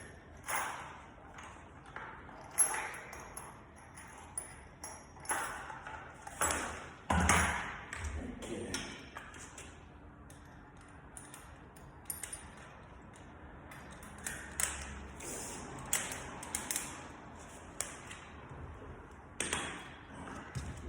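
Irregular taps, clicks and light metallic pings of hand tools and a drill bit being handled, with no drill motor running.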